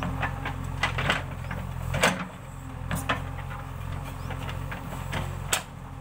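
JCB 3DX backhoe loader's diesel engine running steadily while the backhoe digs, with repeated short knocks and scrapes of the bucket and arm working in soil and stones. The loudest knock comes about two seconds in, and another sharp one near the end.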